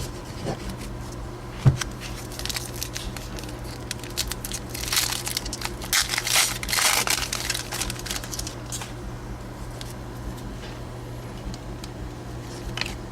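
Baseball trading cards being handled and flipped, with scattered light clicks and a stretch of crinkling and rustling about five to seven seconds in.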